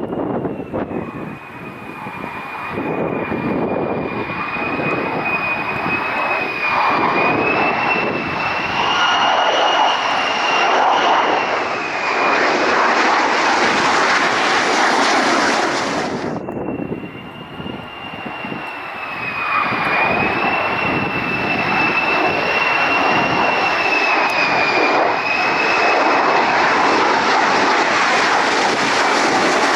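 F-35's Pratt & Whitney F135 jet engine running with a high, steady whine over a loud rushing noise that swells and eases. It breaks off abruptly about halfway through, then picks up again much the same.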